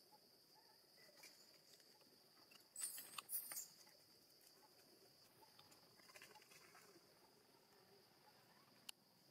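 Faint ambience with a steady high-pitched insect drone, broken by a short crackling rustle about three seconds in, a fainter one a little later and one click near the end.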